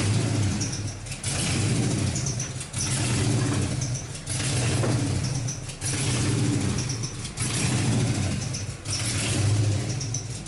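A 2005 Chrysler 300C's 5.7 L Hemi V8 running, its sound rising and dipping in a regular cycle about every second and a half.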